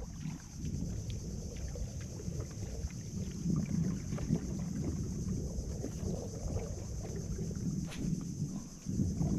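Water lapping against the hull of a small wooden outrigger boat, with wind rumbling on the microphone and scattered faint ticks. A single sharp click sounds about eight seconds in.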